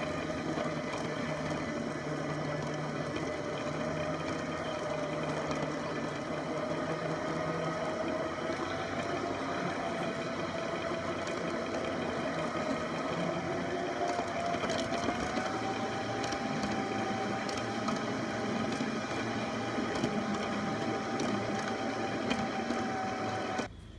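Electric motor and gear drive of a garden-scale model streetcar running, heard from on board: a steady mechanical whine with light clicking, its pitch rising a little about two-thirds of the way in. It cuts off suddenly just before the end.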